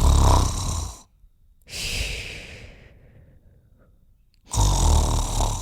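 Loud snoring: a deep rattling snore, then a long breathy exhale that fades away, then a second rattling snore near the end.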